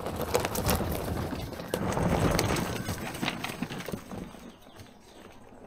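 Electric hub-motor ATV rolling over a rocky dirt track, its tyres crunching and knocking on stones with no engine sound, fading away near the end.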